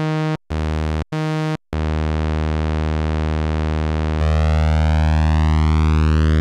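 Behringer 2600 Blue Marvin analog synthesizer with its filter fully open and no resonance, playing a low, buzzy note in three short stabs and then holding it. About four seconds in, the second, identical synth joins on the same note. The sound gets louder, and the two slightly mistuned oscillators set up a slow, sweeping phasing.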